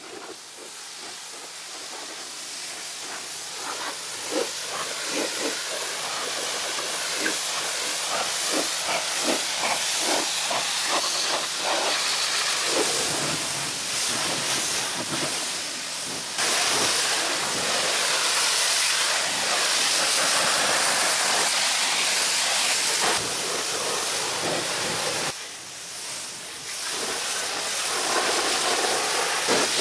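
Pressure washer jet rinsing mud off a pickup truck's body panels: a steady loud hiss of high-pressure water spray that builds over the first few seconds, jumps louder about halfway through and dips briefly near the end.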